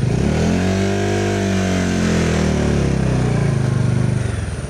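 Bajaj Dominar 400 motorcycle engine under way, its pitch rising over about two seconds and then falling away as the throttle eases, settling to a low, pulsing beat near the end.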